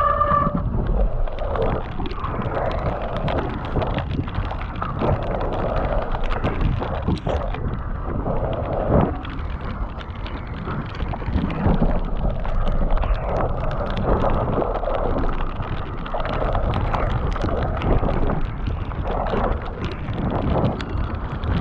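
Mountain bike descending a rough trail in heavy rain: wind rushing over the microphone and a low rumble, with constant rattling knocks from the bike over the bumps.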